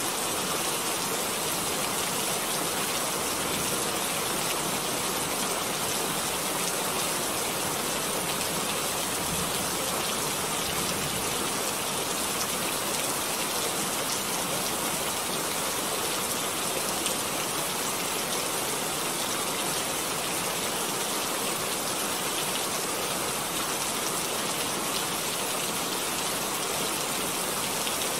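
Steady, even hiss like heavy rain falling, with no breaks or distinct drops.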